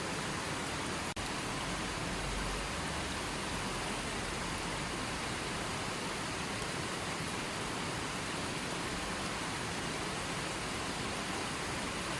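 Fast-flowing stream with a strong current rushing over rocks in a steady, even rush, broken once by a very brief dropout about a second in.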